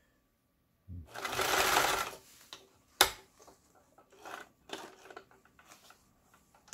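A Singer Capri household sewing machine runs in one short burst of stitching, just over a second long, as a zigzag test seam is sewn after its repair, then stops. About three seconds in there is one sharp click, followed by faint small clicks and fabric rustling.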